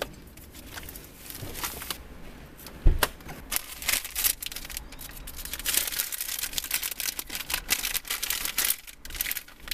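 Rubbish being cleared out of a car: irregular rustling and crinkling of wrappers and bags, with clicks and small clatters and a single thump about three seconds in.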